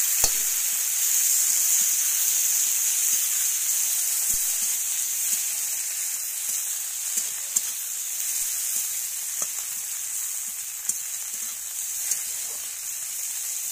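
Onion, dried red chillies and tomato slices sizzling in hot oil in a karai. A flat metal spatula stirs them, and every few seconds it clicks or scrapes against the pan. The sizzle slowly fades.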